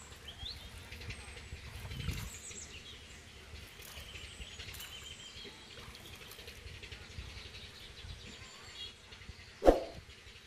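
Faint bird chirps over quiet outdoor ambience. Near the end comes one sudden, loud splash as hands strike down into shallow muddy water.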